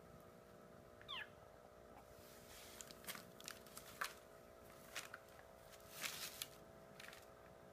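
Ragdoll kitten giving one short, falling mew about a second in, then faint crinkling and rustling of brown packing paper in short bursts as it pounces and plays on it.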